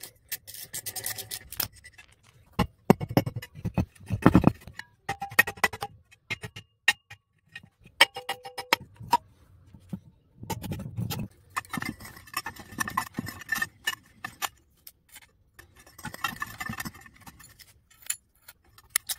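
Hand tools clinking, knocking and scraping on metal as an electric water-pump motor is taken apart: a spanner and screwdriver tap and pry at the rusty pump housing and the motor's end, with a few short metallic rings.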